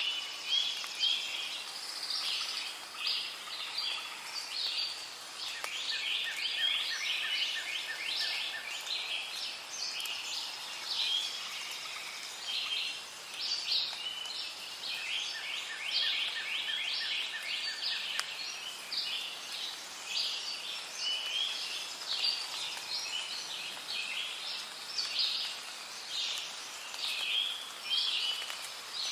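Rainforest ambience: many birds chirping and calling densely without pause, with a fainter rapid ticking call coming and going underneath.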